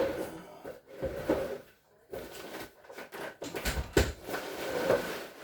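Irregular knocks and clatter of refrigerator parts being handled and moved aside, with one sharp knock about four seconds in.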